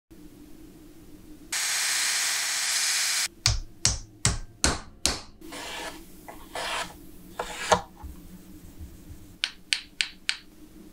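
Hand tools working a block of wood. First comes a steady scraping stroke of about two seconds, then five sharp knife cuts at roughly two a second, then softer shaving strokes and a quick run of four clicks near the end.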